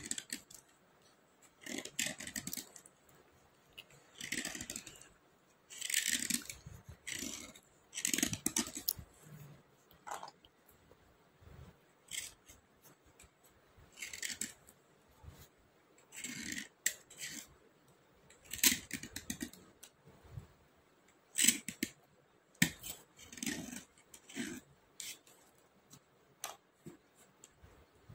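Dry slate pencils being scraped by hand: short scraping strokes, one every second or two with brief pauses, and a few light clicks between them.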